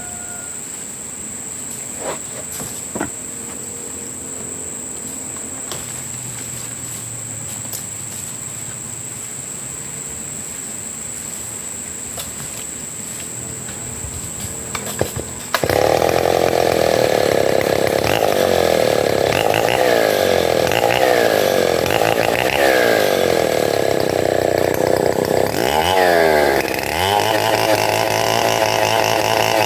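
A home-built engine-driven wood-cutting machine starts abruptly about halfway in and runs loud, its pitch wavering up and down. Near the end its pitch dips and recovers, as if under load. Before it starts there is only a steady high thin buzz with a few clicks.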